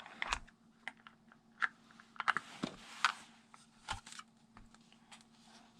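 Irregular light clicks and taps of plastic toys being handled and set down, over a faint steady hum.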